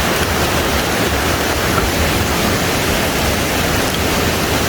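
Waterfall's rushing water, a loud, steady wash of noise.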